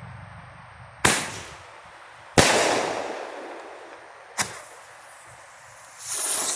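Dominator 5-shot Power Sword firework tube firing: three sharp bangs about one to two seconds apart, the second the loudest, each trailing off in a hiss, then a rising hiss near the end as the next shot goes.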